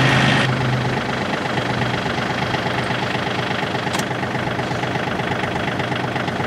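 John Deere 3035D's three-cylinder Yanmar diesel engine idling with an even, rhythmic chug. A louder stretch of engine sound ends abruptly about half a second in, and there is one sharp click about four seconds in.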